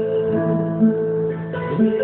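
Band music during a sound check: guitar with held notes and a bass line, without singing.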